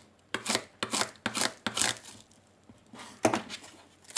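Plastic packaging being handled and torn open: a series of short crinkling, tearing crackles, most in the first two seconds and one more just past three seconds.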